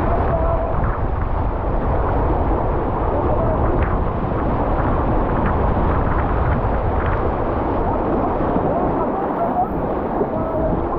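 Whitewater rushing and splashing against a plastic kayak's bow, heard close up from a camera on the boat, with a constant wash of noise and a couple of sharper splashes from paddle strokes.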